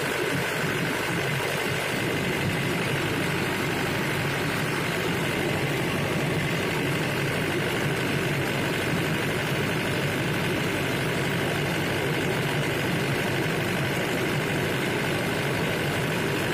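Diesel generator engine running steadily, turning the battery-charging alternator, with a steady high whine over the engine sound.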